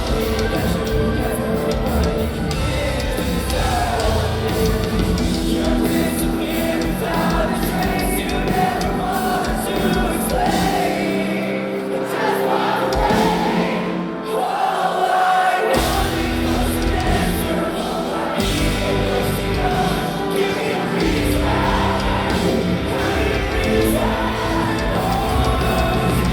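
Hard rock band playing live with sung vocals. About eleven seconds in, the bass and drums drop out for roughly five seconds, leaving guitar and voice, then the full band comes back in.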